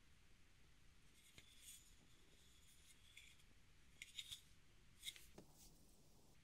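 Near silence with a few faint taps and scrapes as small beech wood blocks are handled and fitted together, most of them bunched about four and five seconds in.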